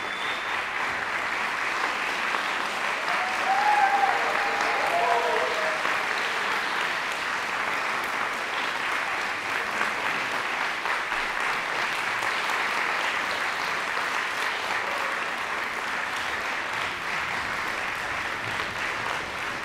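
Concert hall audience applauding steadily. A single voice calls out briefly above the clapping about three seconds in.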